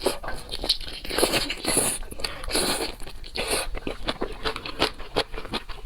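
Close-up eating of shrimp: irregular crunching and biting through the shells, with wet chewing in between.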